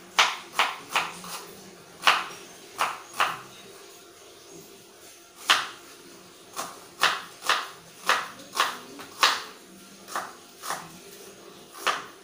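Kitchen knife chopping onion on a cutting board: sharp separate knocks at an uneven pace, in short runs with pauses between.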